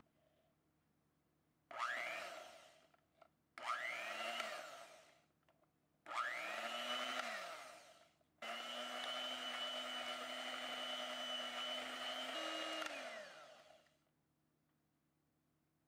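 Electric hand mixer beating eggs and sugar in a glass bowl, run four times. Each run whines up to speed and winds down again. The last and longest run steps up in pitch shortly before it stops.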